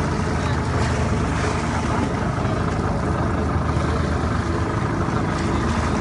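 Fishing boat's engine running steadily, with water splashing alongside.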